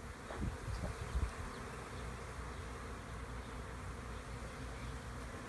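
Honey bees buzzing steadily in numbers around an opened hive, with a few low thumps in the first second or so.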